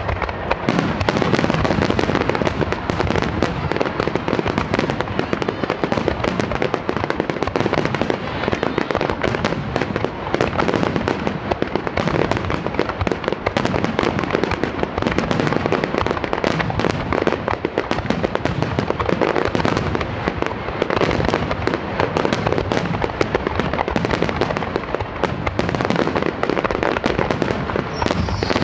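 Fireworks finale barrage: a dense, unbroken stream of aerial shells launching and bursting in rapid succession, with crackle between the bangs, heard from very close range.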